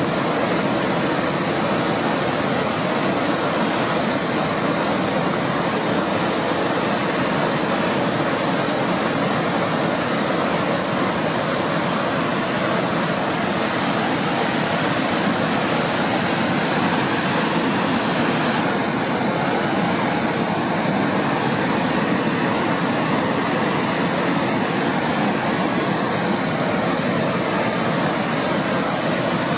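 Waterfall and cascading mountain brook rushing steadily, an even unbroken sound of falling water.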